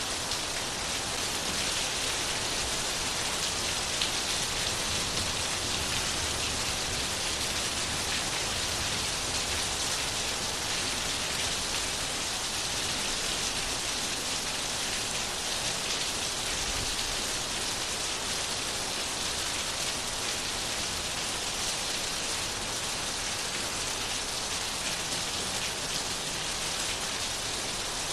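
Steady rain falling on surfaces, an even hiss of many drops with no let-up.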